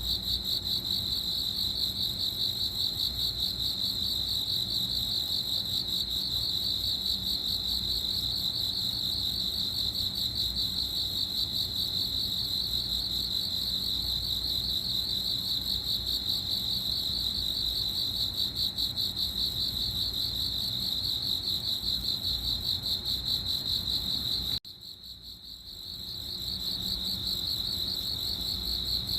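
Crickets chirping in a continuous, fast-pulsing high trill. Near the end it cuts out for about a second, then comes back quieter and builds up again.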